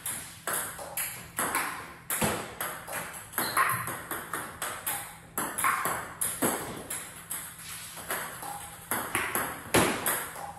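Table tennis ball clicking off the table and the paddle in a steady run of sharp hits, a few a second, as underspin balls are attacked with topspin strokes.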